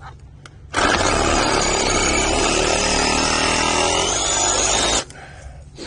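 Reciprocating saw starting about a second in and cutting through a lichen-covered conifer branch for about four seconds, then stopping abruptly.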